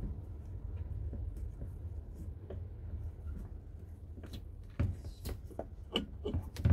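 Handling noise, then a few sharp clicks and knocks from the second half on, as a rear brake caliper is worked by hand to get its piston out. A steady low rumble runs underneath.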